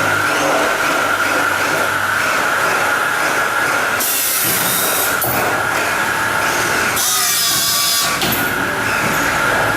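CNC corner cleaning machine for welded uPVC window frames running, its cutting tools working the weld seam with a steady high whine. Two bursts of hiss, each about a second long, come about four and seven seconds in.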